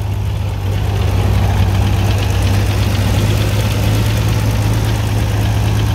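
1951 Brockway truck's Continental 572 gasoline engine idling steadily with a constant low hum. It is running on its own freshly plumbed fuel system, fed by its mechanical fuel pump.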